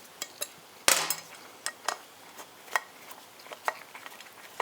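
Small metal hardware and hand tools being handled: scattered light metallic clicks and clinks, with one sharper knock about a second in.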